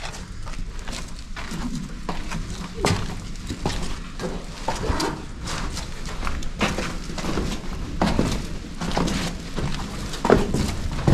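Footsteps and scuffs on a stone floor in an underground tomb, irregular knocks about once or twice a second, over a steady low hum.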